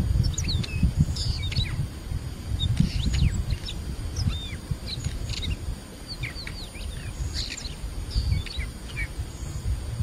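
Small birds chirping: many short, quick high calls, irregular and overlapping, over a low rumble.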